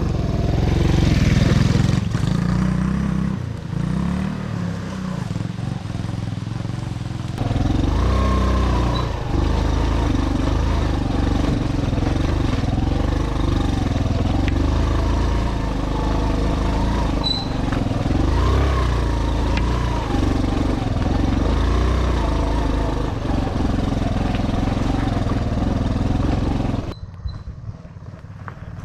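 Motorcycle engine running under way on a rough dirt trail, its pitch rising and falling with the throttle. Near the end the sound drops to a much fainter engine.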